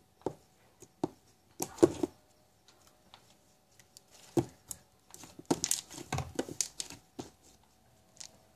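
Thick cake batter slime being squeezed and kneaded by hand, giving irregular sticky clicks and pops, busiest in the second half.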